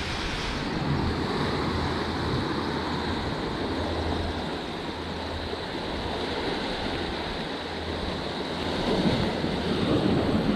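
Sea surf surging into a small rocky cove and breaking against the rocks: a continuous rushing wash of water that swells louder near the end.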